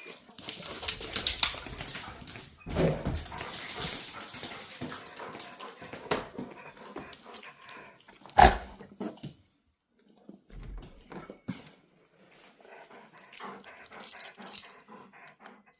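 An excited dog making small noises and moving about, with rustling throughout and one sharp knock about eight and a half seconds in.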